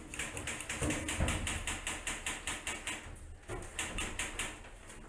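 Rapid airsoft gunfire: a fast, even run of sharp clicks, pausing briefly about three seconds in before starting again.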